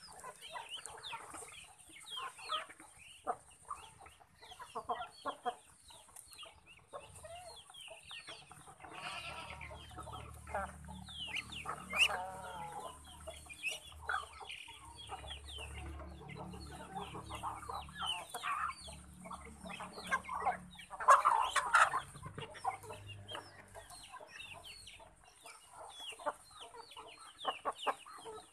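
A flock of chickens clucking as they feed, with many short calls throughout and a louder flurry about twenty-one seconds in.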